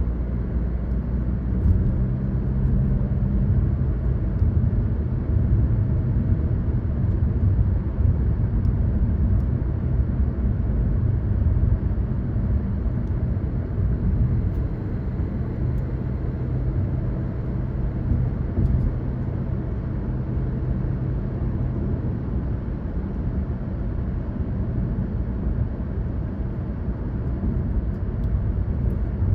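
A car driving along a road: steady engine hum and tyre-and-road rumble, the engine note shifting slightly now and then.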